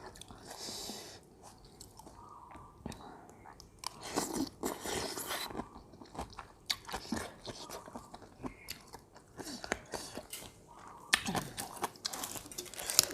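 A person chewing and biting into crunchy food, probably raw vegetables, close to the microphone, with irregular crisp crunches between quieter chewing.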